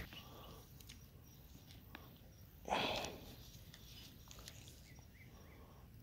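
Faint outdoor background with a short rustling noise about three seconds in, and a few faint bird chirps a little after.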